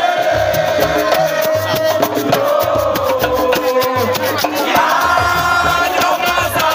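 Upbeat music with a fast, even shaker-and-drum beat, a pulsing bass line and a melody over it.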